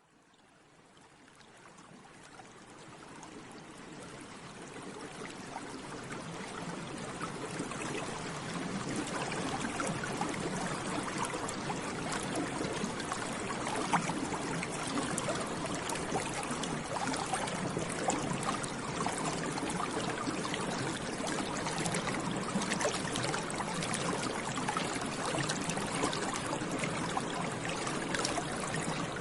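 Water bubbling steadily, a dense crackle of many small bubbles. It fades in from silence over the first several seconds, then holds at an even level.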